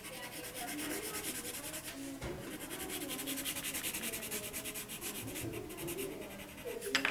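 Coloured pencil shading on drawing paper, a scratchy rub in quick, even back-and-forth strokes. A single louder scratch comes just before the end.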